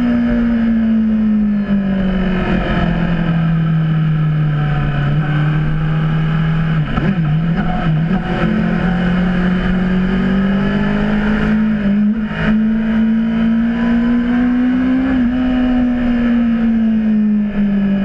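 Honda CBR600RR inline-four sport-bike engine running hard on track. Its note falls over the first few seconds, climbs slowly for about ten seconds, then drops again near the end, with a few brief clicks in the middle.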